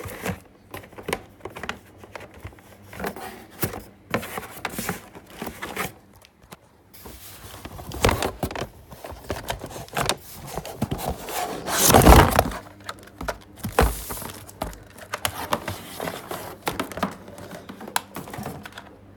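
Packaging being handled as a pressure washer is unboxed: plastic wrap and cardboard crinkling and rustling, with scattered knocks and scrapes. A loud crumpling or tearing rustle comes about twelve seconds in.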